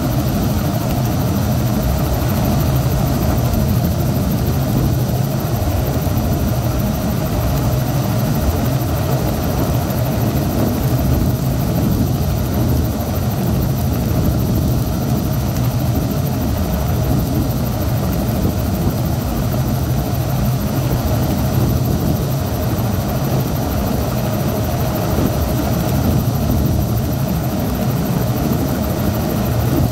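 Helicopter engine and rotors running steadily, heard loud from inside the passenger cabin in flight.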